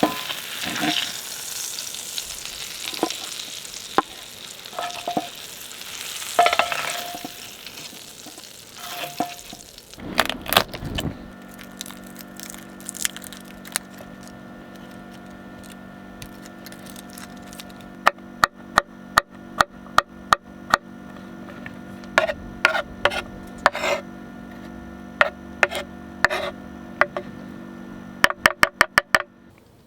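Broccolini and chanterelle mushrooms sizzling in a skillet over a propane bottle-top burner, with a utensil clicking against the pan as they are stirred. After a knock about ten seconds in the sizzle stops; a steady hum follows with a series of sharp clicks, a quick run of them near the end.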